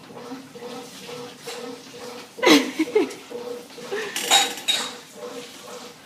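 Washing machine running, its hum pulsing about twice a second. About halfway through there is a loud clatter with a falling squeak, and a burst of metallic clinking comes a little later.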